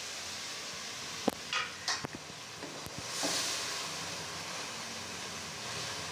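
Chicken pieces sizzling in hot oil and masala in an aluminium pot as a metal slotted spoon stirs them, with a couple of clicks of the spoon against the pot. The sizzle swells about three seconds in.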